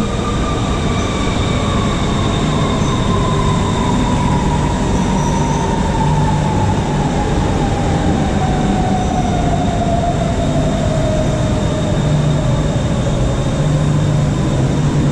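BTS Skytrain electric train pulling into an elevated station: its motor whine falls slowly and steadily in pitch as the train brakes, over a steady rumble of wheels on rail.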